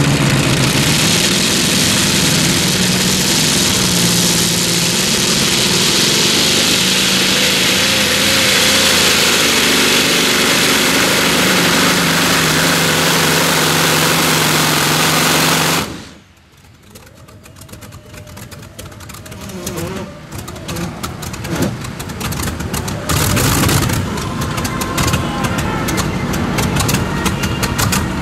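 Modified pulling tractor's engine running at full throttle under load while it drags the brake sled, loud and steady with a slowly shifting pitch. About sixteen seconds in the sound cuts off suddenly; afterwards a quieter engine idle with pops and clatter comes back and grows louder.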